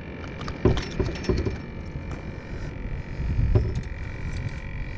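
Scattered small clicks and light knocks of hands handling and unhooking a speckled seatrout on a small fishing boat, over a low steady rumble.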